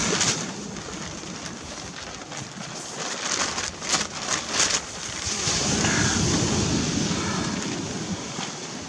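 Wind buffeting the microphone over the wash of surf, swelling up in the second half. There are a few short crackles about four seconds in.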